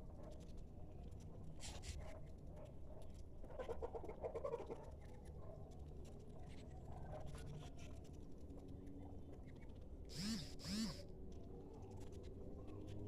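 Faint farmyard bird calls over a low background hum: a quick run of pulsed calls about four seconds in, and two short, louder calls close together near the end.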